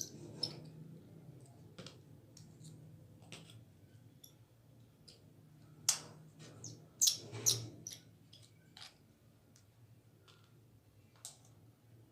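Small scattered clicks and taps of a spinning fishing reel's parts being handled and taken apart, with a few louder clicks about six and seven seconds in.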